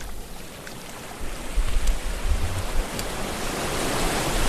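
Small waves washing up on a sandy beach, a steady hiss of surf that grows louder, with wind buffeting the microphone in low rumbles.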